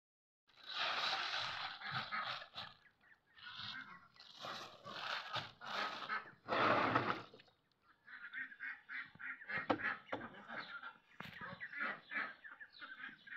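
Clear plastic bag rustling and crinkling as hands stir coarse salt inside it, through about the first seven seconds. Farmyard fowl call repeatedly in the second half.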